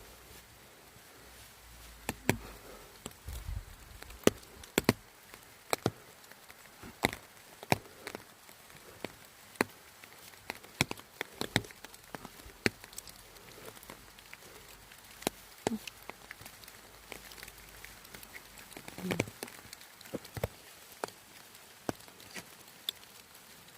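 Raindrops tapping on an umbrella: sharp, irregular taps, about one or two a second, some louder than others, over a faint steady hiss of rain.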